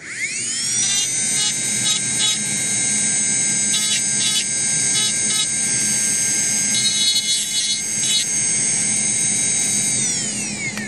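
Dental laboratory handpiece spinning up to a steady high whine, its bur grinding the denture teeth in short touches to lighten heavy protrusive contacts. It winds down near the end.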